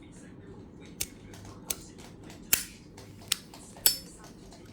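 Zippo lighter clicking metallically as it is handled: five sharp clicks spread over a few seconds, the two loudest ringing briefly.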